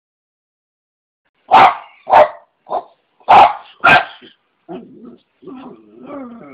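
Small dog barking at a praying mantis: five sharp barks in quick succession starting about a second and a half in, the third one weaker, followed by quieter, lower sounds.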